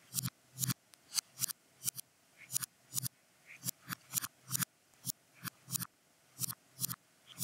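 Sharp clicks of LEGO bricks snapping into place, about two to three a second at an uneven pace, some coming in quick pairs.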